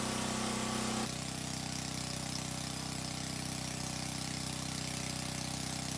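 A steady mechanical hum, like an engine idling, made of several even tones over a low regular pulse; about a second in its higher tones drop away abruptly and the lower hum carries on unchanged.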